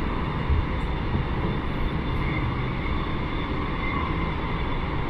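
Electric commuter train running, heard from inside the carriage: a steady low rumble and hiss of the wheels and car in motion.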